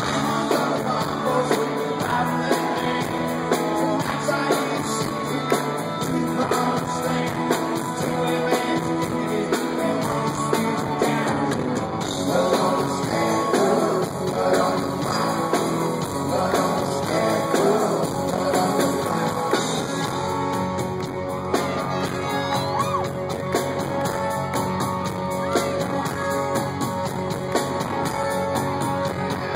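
Live rock band playing, with electric guitars, drums and a male lead vocal, heard from within the audience through a phone's microphone.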